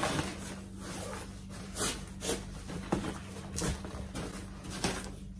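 Rustling and irregular soft knocks and clicks of a fabric storage box and its cardboard insert panels being handled and fitted together, over a faint steady hum.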